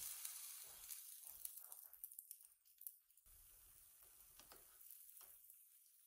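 Thin okonomiyaki batter sizzling faintly on a hot electric griddle as a ladle pours it and spreads it into a round, with small ladle taps on the plate; the sizzle starts up afresh about three seconds in.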